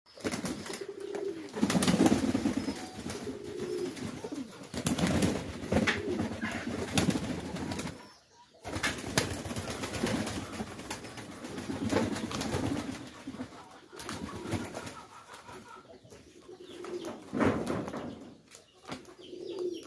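Domestic pigeons cooing while others bathe in a basin of water, splashing and flapping their wings.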